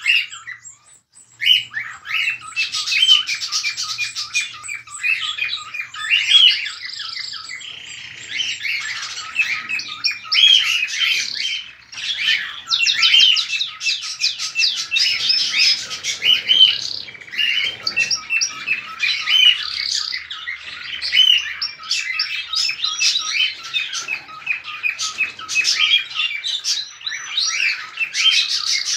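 A flock of cockatiels chattering: a dense, unbroken mass of chirps and squawks from many birds at once, with a brief lull just after the start.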